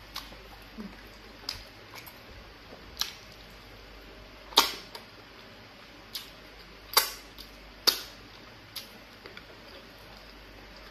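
Mukbang eating sounds: sharp, wet mouth smacks and clicks while chewing fufu and egusi soup, coming every second or so. The loudest smacks fall about halfway through and again around seven and eight seconds in.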